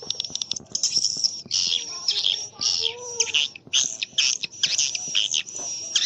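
Swiftlet calling sound: dense, rapid twittering chirps and buzzy trills in quick bursts, high-pitched. It is a recorded lure call of the kind played at swiftlet houses to draw the birds in to nest.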